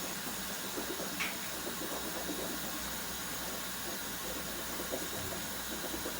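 Hot water running steadily from a kitchen tap into a large cooking pot as it is filled, a steady hiss with a brief faint chirp about a second in.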